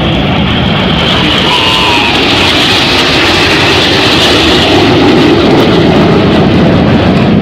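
Jet roar of a Red Arrows BAE Hawk T1 passing during the display, a steady loud rush that grows louder toward the end.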